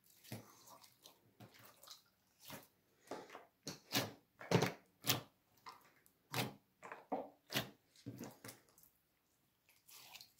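Clear slime stretched and kneaded by hand: irregular wet squelches and sticky pops and crackles, loudest about halfway through.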